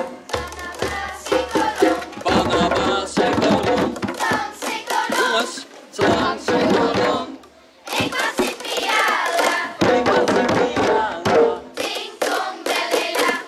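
Children singing together to djembe drums struck by hand, with a short break just past halfway.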